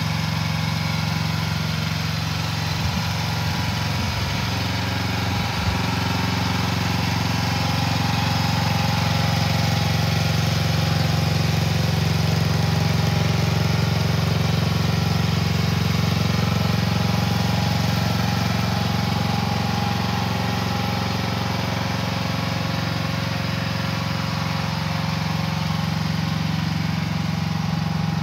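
AGT Industrial LH12R 1-ton mini excavator's small engine idling steadily.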